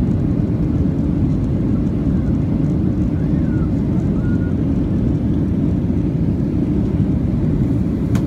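Steady cabin noise of a Boeing 737 airliner climbing after takeoff: jet engines and rushing air heard inside the cabin as an even, low rumble.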